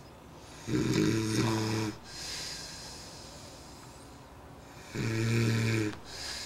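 A man snoring in his sleep: two loud snores about four seconds apart, each lasting about a second, with softer breathing between them.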